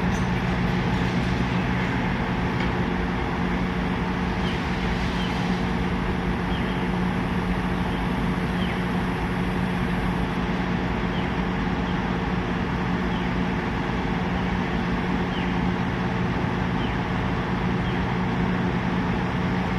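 Heavy construction machinery's diesel engine running steadily, a constant low hum, with faint short high chirps repeating about once a second through the middle.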